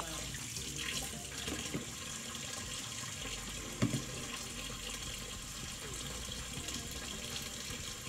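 Kitchen faucet running steadily into the sink while lemons are rinsed under the stream, with one short knock about halfway through.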